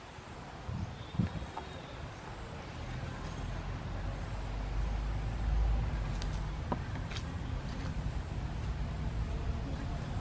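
A low rumble that swells from about two seconds in, loudest around the middle, then holds steady, with faint high chirps recurring throughout and a few light clicks.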